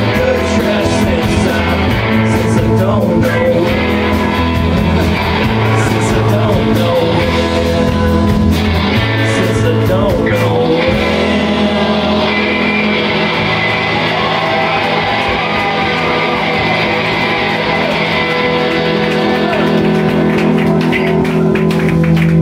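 Live rock band playing loud, with electric guitars and drums. The drum hits thin out about halfway through and pick up again near the end.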